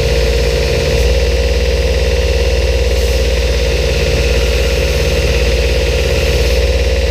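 Knife grinder running steadily, its motor humming under the hiss of the abrasive belt as a steel blade is held against it, throwing sparks. This is the clean-up grind of a skinner knife blade after heat treatment.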